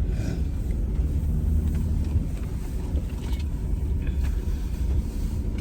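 Jeep driving, its engine and tyres making a steady low rumble.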